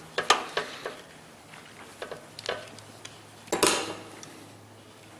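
Steel pliers clicking and clinking as they work a wire connection, a few short sharp clicks, then a louder metal clatter about three and a half seconds in as the pliers are set down on the workbench.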